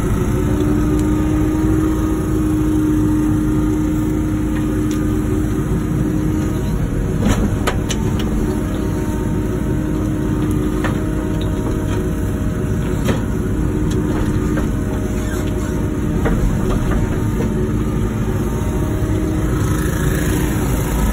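Wacker Neuson ET145 excavator's diesel engine running steadily with a constant tone that eases about six seconds in. A few sharp knocks come through over the engine, the loudest about seven seconds in.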